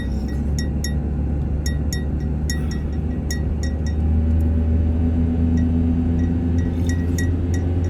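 Vehicle cabin with the steady low drone of engine and road, which grows louder about four seconds in as the vehicle speeds up. Over it, light metallic ticks or clinks repeat two or three times a second at uneven spacing, like something small rattling in the cab.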